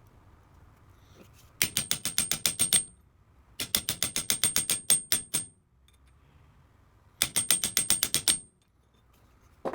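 A ratchet clicking rapidly, about ten clicks a second, in three bursts of roughly a second each with a thin high ring through them, then a single short knock near the end.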